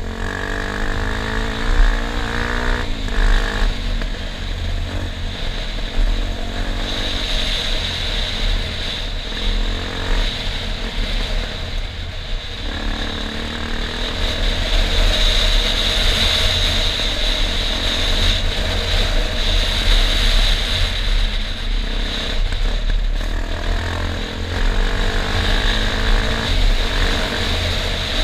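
Enduro motorcycle engine running while being ridden, its pitch rising and falling with the throttle, over a heavy low rumble.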